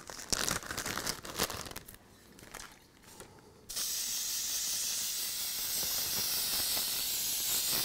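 Aerosol can of spray glue hissing in one steady spray, starting about halfway through and lasting about four seconds. Before it come a few light clicks and rustles of handling.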